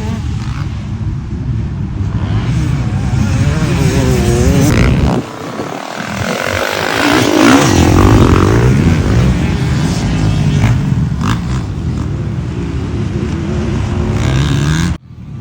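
Stark Varg electric motocross bike being ridden, its motor whine rising and falling with the throttle over heavy wind buffeting on the microphone. The sound drops away sharply about five seconds in and again near the end.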